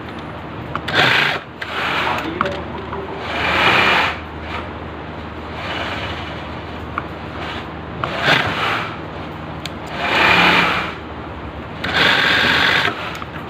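Industrial sewing machine running in about five short bursts of stitching, each under a second, over a steady low hum.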